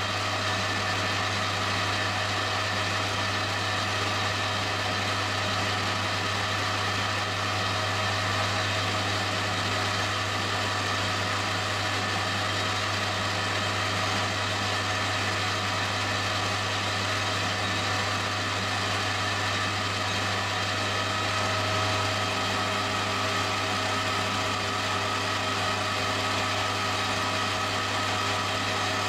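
Metal lathe running steadily with an even motor hum, spinning an aluminium alloy spinner while a hand-held freehand turning tool takes fine cuts across it.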